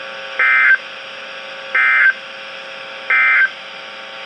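NOAA Weather Radio SAME end-of-message signal: three short, buzzy bursts of digital data tones about 1.3 seconds apart, marking the end of the alert broadcast.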